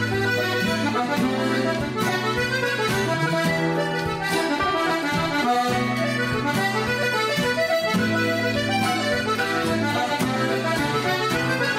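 Button accordion playing an Irish traditional tune, with sustained chords under a quick-moving melody, backed by acoustic guitar accompaniment.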